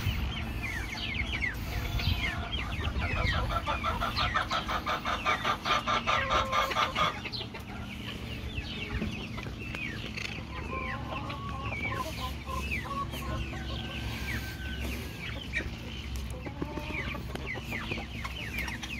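Chickens clucking, with a spell of fast, loud clucking in the first third, then quieter clucks and many short, high, falling chirps.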